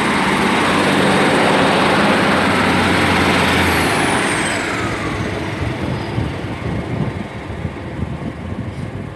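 Class 156 Super Sprinter diesel multiple unit pulling out of the station: a loud, steady underfloor diesel engine note that drops away about four seconds in, with a high whine falling in pitch as the train moves off, and the sound then fading.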